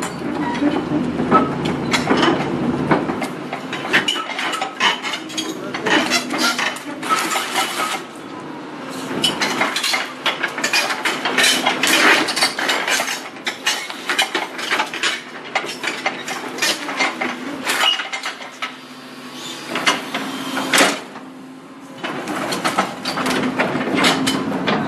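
Large rocks clattering and grinding against one another and against a steel bed as an excavator bucket scoops and drops them, in a dense run of irregular knocks, over the steady hum of the excavator's engine.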